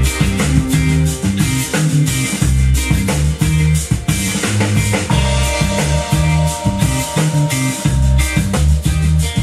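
Rock instrumental with guitar, a repeating bass line and drum kit, played back through a vintage stereo receiver and its speakers.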